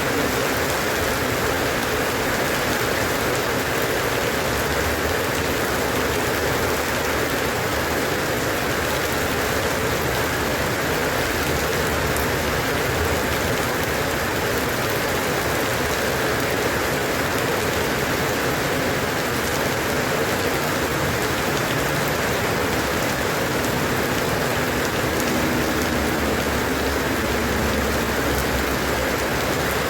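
Steady, even rain falling and pattering on a surface.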